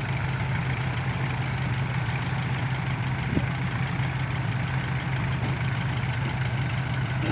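Diesel engines of a Kubota farm tractor and a six-wheel dump truck running steadily with a constant low hum, without revving, while the tractor pulls on a tow rope to recover the bogged truck.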